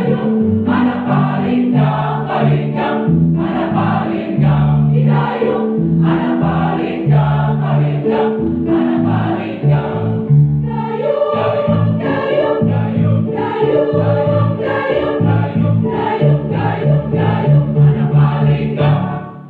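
Choir singing a medley of Minangkabau songs in several-part harmony, in short rhythmic phrases; the sound cuts off at the very end.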